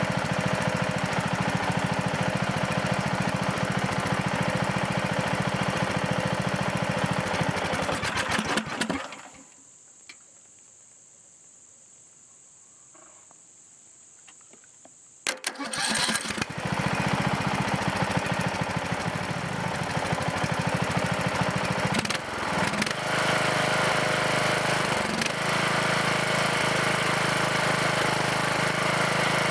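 Briggs & Stratton 18.5 HP Intek OHV single-cylinder lawn-tractor engine running steadily, then shut off about nine seconds in and winding down. After a pause of about six seconds it is cranked and catches within a second or so, then runs steadily again, running pretty good now after its repair.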